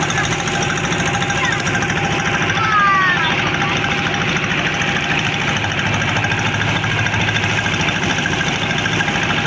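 Motorboat engine running steadily, with rapid, even pulses.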